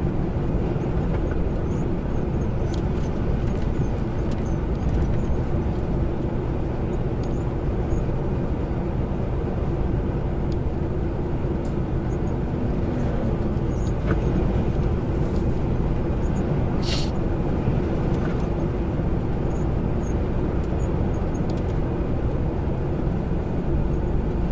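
Semi-truck running at road speed, heard from inside the cab: a steady low engine and road rumble, with a short hiss about two-thirds of the way through.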